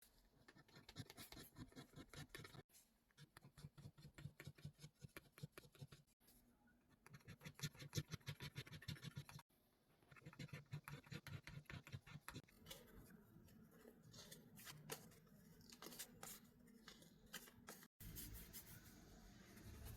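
Quiet close-up scratching and rustling of packaging being handled, made of rapid clicks and scrapes, broken by several abrupt cuts.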